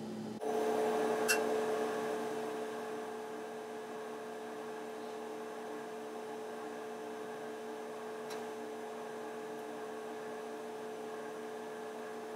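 Steady electrical hum with a faint hiss, starting abruptly about half a second in, with a faint click about a second later.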